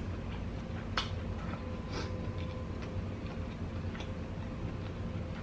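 A clock ticking, one faint sharp click about once a second, over a steady low hum.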